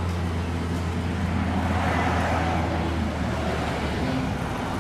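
Hyster forklift's engine running steadily as it carries a heavy crate, with a low hum and a rushing noise that swells about two seconds in.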